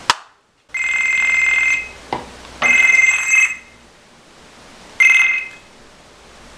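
A short click, then a telephone ringing three times with a high, steady electronic ring, the last ring cut short: an incoming call.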